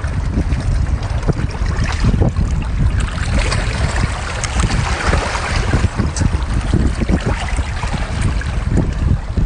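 Outdoor wind buffeting the microphone in a continuous low rumble. Crackly eating noises come through as baby king crab legs are bitten into and chewed, most plainly around the middle.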